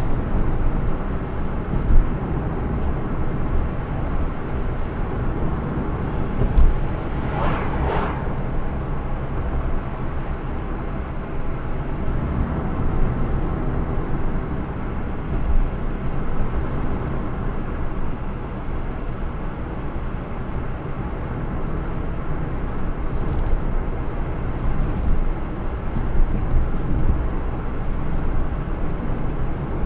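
Steady road noise from a car being driven: a continuous low engine and tyre rumble with a few short low thumps, and a brief whoosh about eight seconds in.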